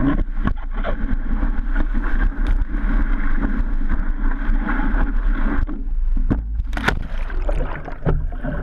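Whitewater rushing around a surfboard, heard through a board-mounted action camera with wind buffeting its microphone. A sudden sharp hit comes about seven seconds in.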